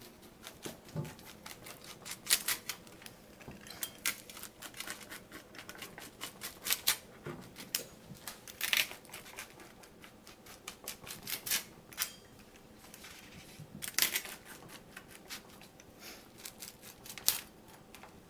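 Rolling pizza cutter wheel crunching through a baked tortilla-crust pizza and pressing against the pizza pan beneath, in many sharp, irregular crunches and clicks as it is pushed back and forth.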